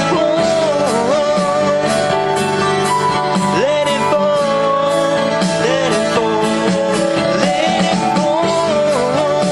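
Full-band rock song with guitars and drums playing an instrumental stretch. A lead melody line bends and slides in pitch over steady cymbal beats.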